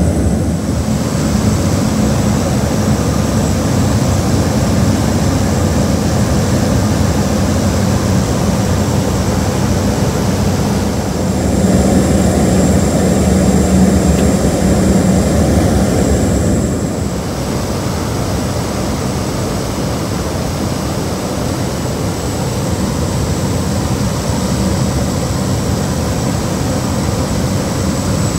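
Cabin noise of a Cessna 208B Grand Caravan in flight: the steady drone of its single Pratt & Whitney PT6A turboprop engine and propeller, with a thin high whine, heard from inside the cabin. It grows louder for several seconds in the middle, then settles a little lower.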